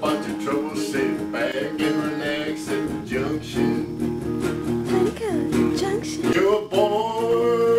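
Solid-body electric guitar being played, picked notes and chords in a blues vein, with a few sliding notes and one note held near the end.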